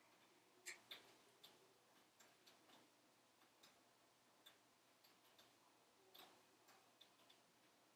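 Logs burning in a wood stove, crackling faintly: sparse pops and snaps at irregular intervals, a sharper pair about a second in and another near the end.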